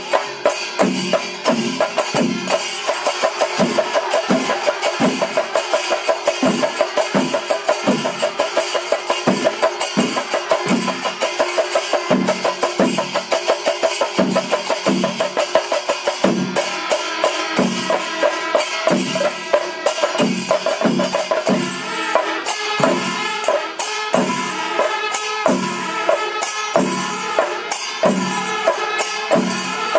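Pandi melam temple ensemble playing: chenda drums beat a steady rhythm of about two strokes a second, ilathalam cymbals clash continuously, and kuzhal pipes and curved kombu horns sound over it, louder from about two-thirds of the way through.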